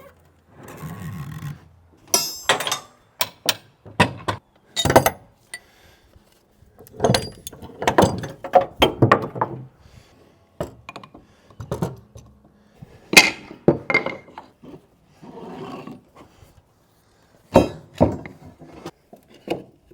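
Irregular series of wooden thunks and metallic clinks: heavy planks and metal being shifted and knocked about by hand. The loudest knocks come about five seconds in and again around thirteen seconds.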